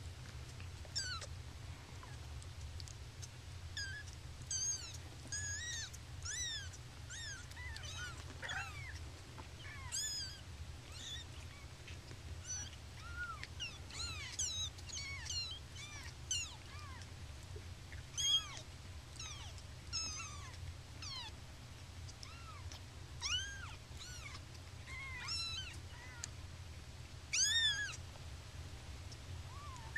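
Young kittens mewing over and over in short, high-pitched cries, several at a time at different pitches. A steady low hum runs underneath.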